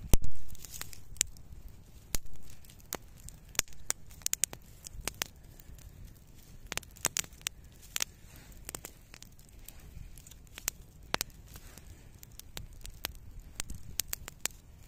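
Irregular sharp crackles and snaps, scattered unevenly, with two louder knocks in the first few seconds.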